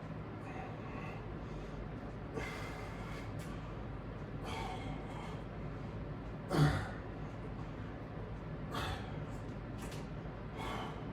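A person breathing out sharply several times over a steady background hum, with one louder bump about six and a half seconds in.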